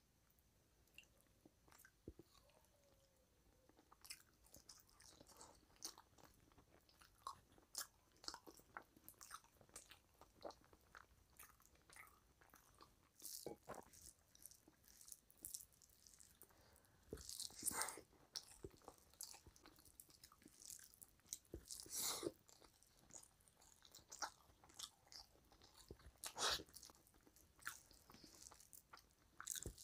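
Faint, close-miked eating sounds of rice and curry eaten by hand: soft chewing, wet mouth clicks and lip smacks, with a few louder smacks in the second half.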